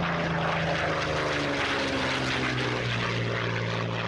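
A propeller aircraft's engine running steadily over a rushing hiss, its pitch falling a little about two and a half seconds in.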